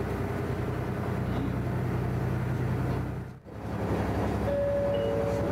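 KiHa 110 series diesel railcar running along the line, a steady low rumble with a brief dip in the sound about three and a half seconds in.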